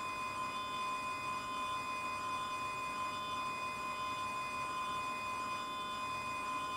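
A steady, unchanging whine made of several fixed tones, the strongest at a middle pitch with fainter ones higher up.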